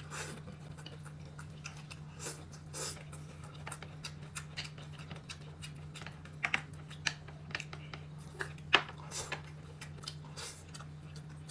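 Eating sounds: irregular small clicks and smacks of chewing and utensils, with a steady low hum underneath.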